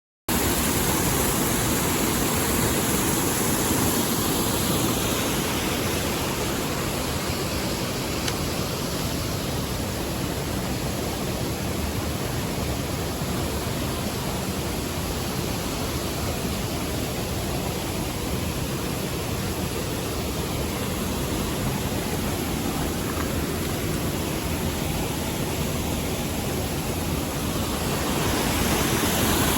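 Mountain stream water rushing steadily; the sound cuts in abruptly just after the start and swells a little near the end.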